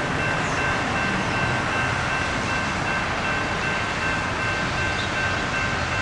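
Steady rumble of a freight train on the rails, with two faint, steady high tones over it.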